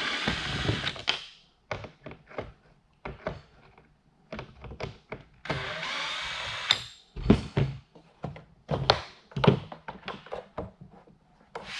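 Cordless drill/driver running in two short bursts of about a second each, one at the start and one about five and a half seconds in, backing out the screws that hold a blend-door actuator to a plastic HVAC box. Between and after the bursts come knocks and clicks of plastic as the actuator is worked loose, the loudest a few seconds from the end.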